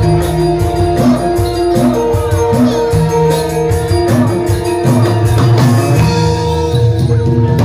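Javanese gamelan music accompanying a jathilan horse dance: struck metallophones ring out sustained notes over regular drum strokes and jingling percussion.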